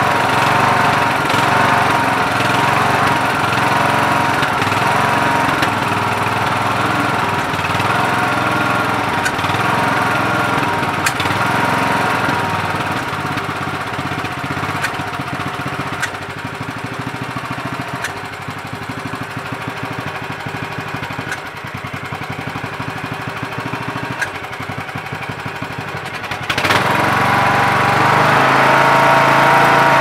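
Briggs & Stratton Intek 20 hp lawn tractor engine running. About halfway through it falls to a lower, uneven speed, then picks back up sharply near the end. It is on a replacement carburetor that the owner says makes it surge, being too small for the engine.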